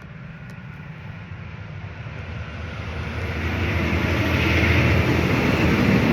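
WavyTalk Steamline Pro steam straightener brush pushing out steam: a rushing hiss with a low rumble under it that swells over a few seconds and is loudest near the end.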